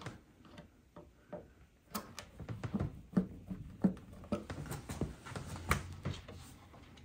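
Small screwdriver driving a screw into the plastic bracket of an Ikea Maximera drawer: scattered light clicks and taps of metal tool on plastic, more frequent after about two seconds, with a louder knock near the end.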